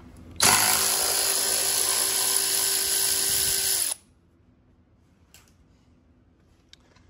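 Milwaukee cordless ratchet running steadily for about three and a half seconds as it spins a bolt out, then stopping abruptly. After it stops there is near silence with a couple of faint ticks.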